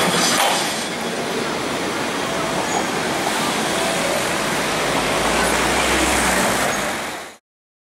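City street traffic noise at a steady level, with a low rumble building up about four and a half seconds in; it cuts off abruptly near the end.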